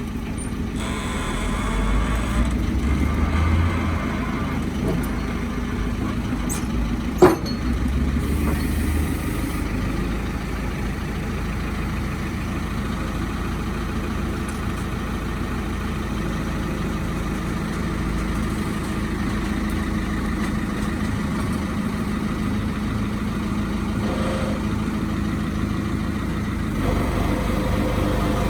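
JCB 3CX backhoe loader's diesel engine running steadily, with a single sharp knock about seven seconds in.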